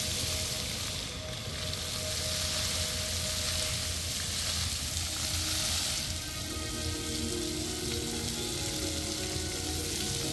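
Jets of a dancing fountain spraying and splashing, a steady hiss, with faint music from the show over it; the music's notes grow plainer about six seconds in.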